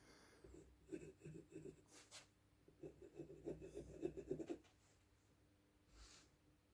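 Faint scratching of rune lines being drawn onto a wooden axe handle: a run of quick strokes about a second in, then a longer run of strokes from about three to four and a half seconds in.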